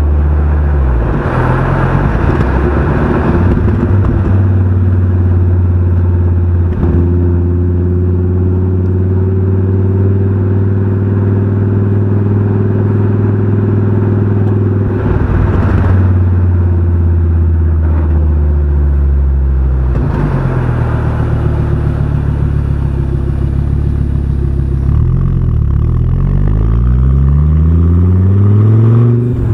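Fiat Coupe 20V Turbo's five-cylinder engine and exhaust on the move. The engine note drops away and picks up again several times, and near the end it rises steadily as the revs climb under acceleration.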